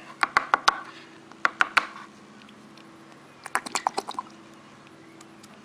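Quick clusters of light clicks and taps, three or four at a time in three bursts, from handling the small jar of gold. A faint steady hum runs beneath.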